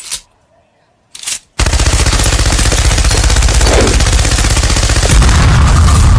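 Machine-gun sound effect: two brief noises, then from about a second and a half in, continuous rapid automatic fire, with a heavier low explosion rumble joining in near the end.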